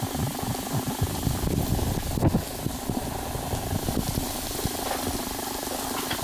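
Diced chicken and mushrooms frying in a pan while being stirred, with a low, uneven rumble underneath.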